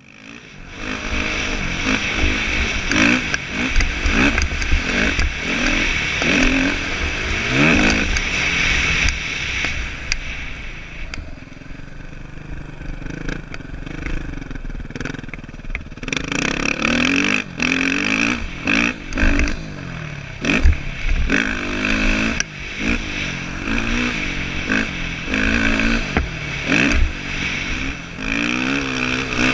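Dirt bike engine heard from a helmet-mounted camera while riding over rough ground, its pitch rising and falling again and again with the throttle, with a steady rushing hiss and frequent sharp knocks. It comes in about a second in and runs lower for a stretch in the middle.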